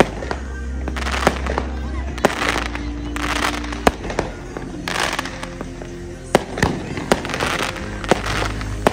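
Fireworks going off overhead: a string of sharp bangs about every half-second to second, several followed by bursts of crackling, over steady background music.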